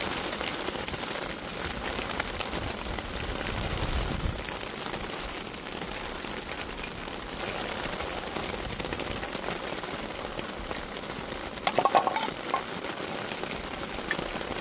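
Steady rain falling on ground, leaves and rocks, with the crinkle of a plastic food wrapper being handled and a brief clatter of cookware about twelve seconds in.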